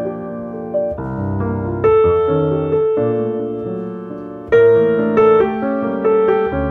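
Background piano music: chords and melody notes struck and left to ring. Louder chords come in about two seconds in and again about four and a half seconds in.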